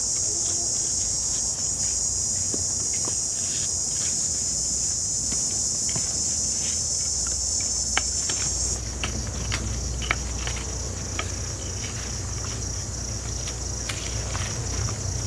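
Steady high-pitched chorus of insects, easing slightly a little over halfway through, with scattered sharp crackles from a small wood fire.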